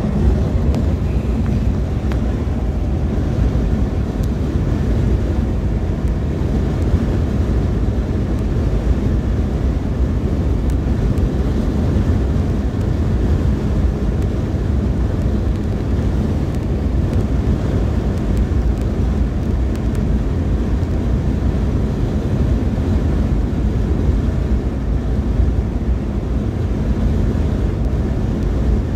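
Steady wind buffeting the microphone over the running noise of a vehicle travelling along a road.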